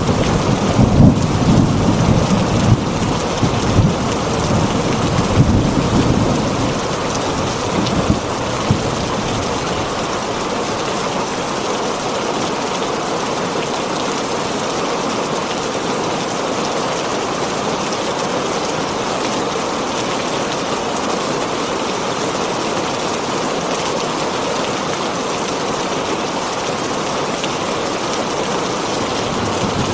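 Heavy rain falling on a tin roof as a steady hiss, with a low rumble of thunder over the first several seconds that dies away, leaving only the rain.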